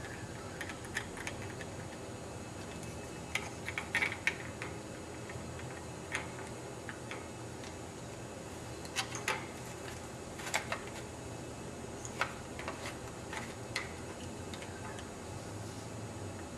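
Plastic Lego pieces of a model garbage truck's cart tipper and hopper being worked by hand: scattered, irregular light clicks and taps over a steady low hum.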